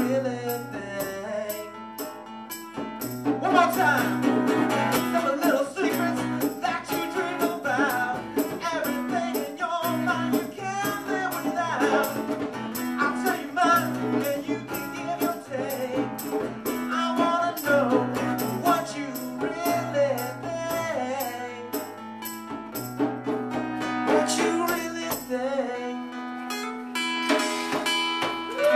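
Live acoustic music: a man singing over a strummed acoustic guitar, with steady hand percussion and cymbal. A long note is held near the end.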